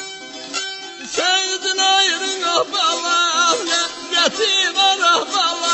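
Azerbaijani ashiq music: a saz plucked over a steady drone note, and from about a second in a man singing a long, wavering melismatic line over it.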